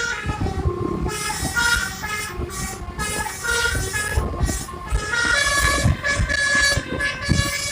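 Basuri multi-tone air horn on a bus playing a telolet melody: a run of short horn notes that change pitch every fraction of a second, with brief breaks between phrases.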